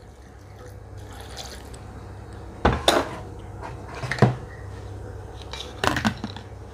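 Water poured from a plastic jug into a glass blender jar, a steady pouring for about two and a half seconds. Then a few sharp knocks and clatters, the last as the plastic lid is fitted onto the jar.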